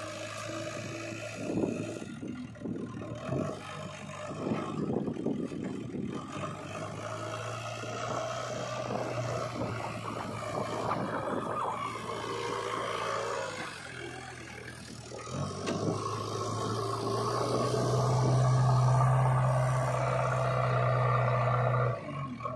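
JCB 3DX backhoe loader's diesel engine running steadily under load as the machine drives and scoops soil with its front bucket, with scraping and clatter of earth. The engine grows louder in the second half, then drops sharply near the end.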